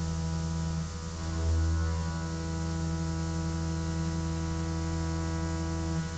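CNC mill ramp-milling 1018 steel with a 5/8-inch two-flute Iscar end mill under flood coolant: a steady hum made of several even tones. The hum dips briefly about a second in and then swells.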